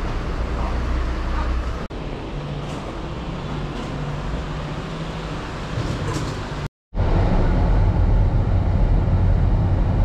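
Street noise with traffic, a steady rumble. It drops out for a moment about seven seconds in and comes back louder and heavier in the low end.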